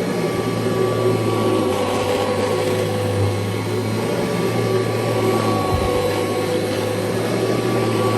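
1989 Kirby Legend II upright vacuum cleaner running steadily on carpet, with a constant motor hum and a steady whine.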